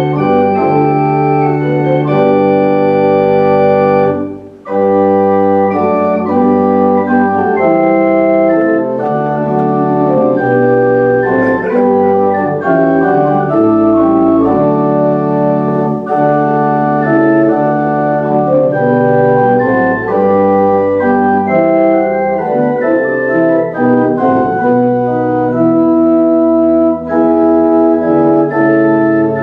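Organ playing a hymn in sustained chords that change every second or so, with a brief break about four and a half seconds in: the recessional hymn.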